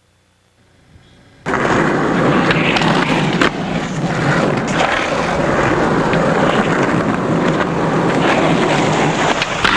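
Skateboard wheels rolling over concrete, a loud steady rolling noise that cuts in suddenly about a second and a half in, with a few sharp clacks from the board.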